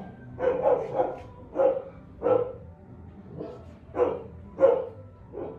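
A dog barking repeatedly, about nine short barks at uneven intervals of roughly half a second to a second.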